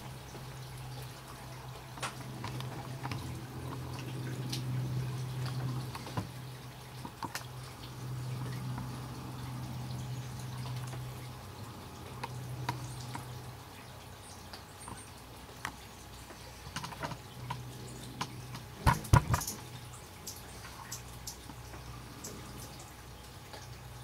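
Scattered water drips falling after the night's rain, over a low steady hum. About nineteen seconds in comes a quick cluster of loud, sharp knocks.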